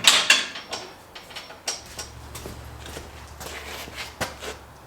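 Clicks and knocks of metal parts and tools being handled during sawmill assembly, loudest at the start, then sparser. A faint low hum comes in about two seconds in.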